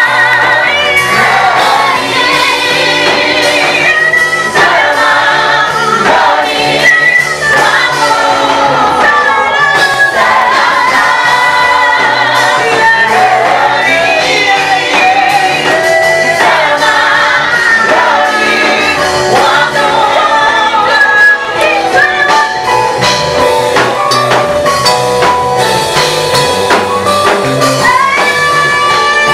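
Gospel praise-and-worship song sung by a choir in several voice parts over steady instrumental backing with a bass line and drums.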